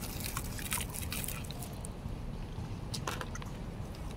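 A person chewing food close to the microphone, with scattered small clicks of a plastic spoon against a plastic food container, over a steady low background noise.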